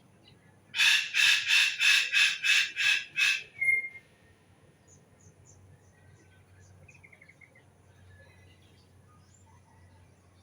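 A loud bird call of about eight rapid, harsh notes, some three a second, starting about a second in. A short clear whistle follows, then faint high chirps of small birds.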